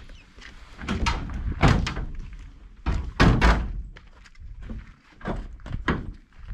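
Heavy thuds and knocks from the metal body and doors of an old Volkswagen Kombi van, in several bursts, loudest about three seconds in.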